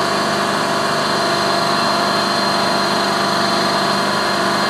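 Amphibious boat's engine running steadily as it drives on its wheels over a dirt track, with an even hum and a high whine that hold constant.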